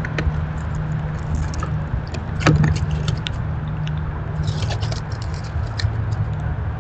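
Grey squirrels foraging right at the microphone: scattered sharp clicks and crackles, the loudest about two and a half seconds in and a quick cluster near five seconds, over a steady low hum.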